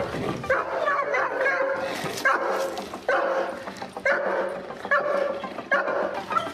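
A dog barking repeatedly, roughly one bark a second.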